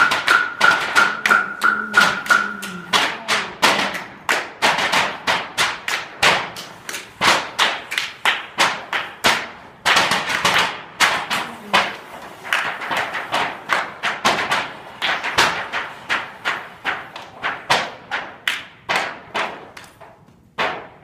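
A small percussion ensemble striking round discs laid on a hard floor in a steady rhythm: sharp taps about three a second. A steady high tone sounds under the first three seconds.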